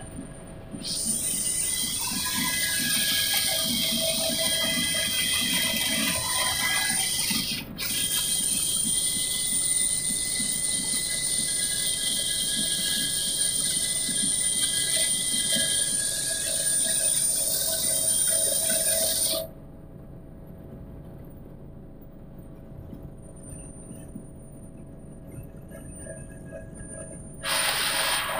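Helicopter cabin noise in flight: a loud rushing hiss with steady high-pitched whines. It cuts off abruptly about two-thirds of the way through to a much quieter low drone, then comes back loud for a moment near the end.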